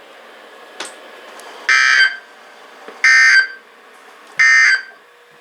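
Three short bursts of Emergency Alert System SAME digital data tones, a harsh buzzing warble, about 1.3 s apart. These are the end-of-message code that closes a severe thunderstorm warning broadcast.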